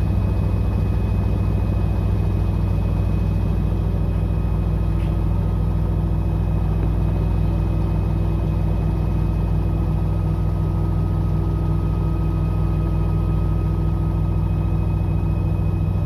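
Raylan 12 kg front-loading washing machine with an inverter motor in its spin cycle, the drum spinning steadily: a loud, even low hum with a faint high motor whine and no knocking or banging.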